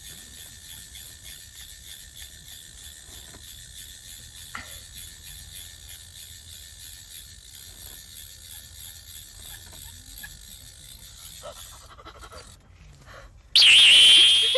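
A small ice-fishing reel winding in the line with a steady, fast ticking, while a wakasagi is being brought up through the ice hole. Near the end comes a loud, brief, high-pitched squeal.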